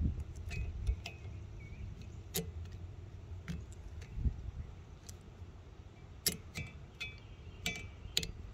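Irregular light clicks and clinks of a replacement wiper blade's adapter being handled and worked onto the metal wiper arm, some with a short ringing tone, over a low handling rumble in the first second.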